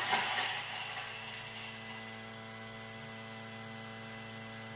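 Thermomix motor spinning its blades at high speed for a five-second chop, mincing garlic. It starts with a loud burst of chopping noise and settles into a steady motor hum.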